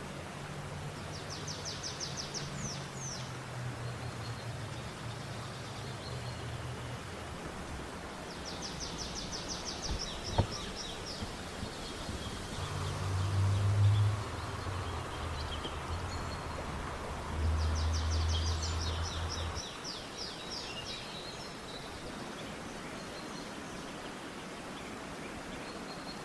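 A songbird's rapid trill, each about two seconds long, repeated three times about eight seconds apart over a steady outdoor hiss. Low rumbling noises come and go underneath, with one sharp knock about ten seconds in.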